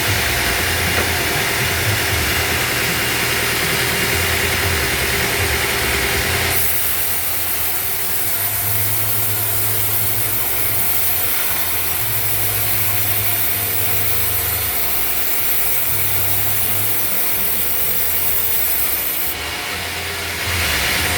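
Sawmill saw running and cutting through wood, a steady loud noise with a shifting low hum. The sound changes abruptly about six seconds in, turning to a bright high hiss, and changes again just before the end.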